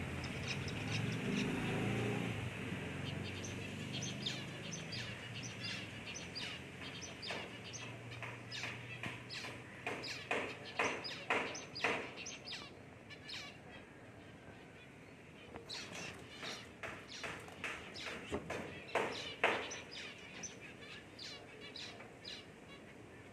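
Zebra finch calls: many short, sharp chirps in quick runs, with a lull a little past the middle and the loudest chirps near the end. A low hum lies under the first half.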